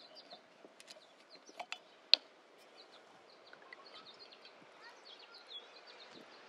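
Faint outdoor ambience with small birds chirping now and then, and a few light clicks of a glass bottle and glassware being handled, the sharpest about two seconds in.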